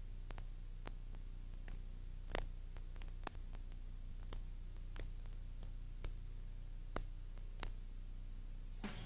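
Low steady electrical hum with faint scattered clicks and crackles, about one a second, the loudest a little over two seconds in.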